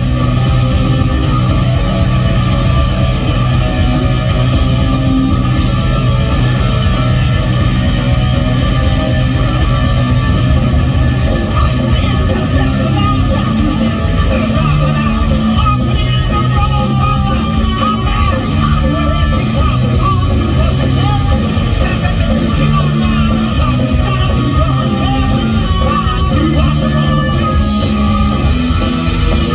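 Punk rock band playing live at full volume, with electric guitar, bass and drums.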